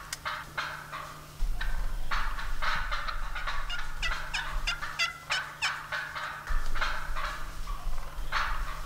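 A flock of wild turkeys calling: many short calls in quick succession, overlapping, some with a quick drop in pitch.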